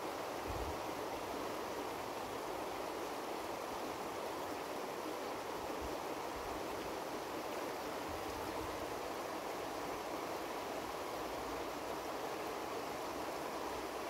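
Steady rush of a swift-flowing river.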